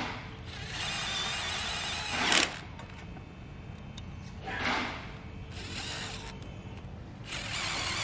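Electric drill driving self-drilling wafer-head screws through a steel bracket into a square steel tube frame, in three short runs. The first run ends in a brief loud peak, and a short burst comes between the runs.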